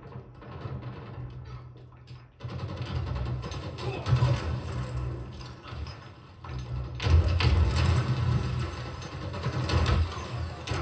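Mechanical clanking and low rumbling from a game or film soundtrack, with several louder surges.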